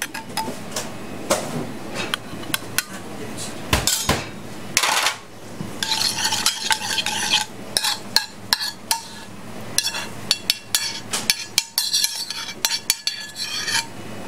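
Metal spoon clinking and scraping against a stainless steel frying pan as the fish and cherry-tomato sauce are spooned out onto a plate, many short knocks throughout, with two spells of hiss partway through.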